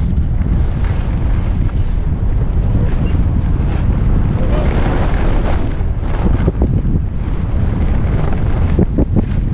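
Heavy wind rumble on the microphone of a camera moving fast down a ski slope, with the steady hiss and scrape of sliding over packed snow.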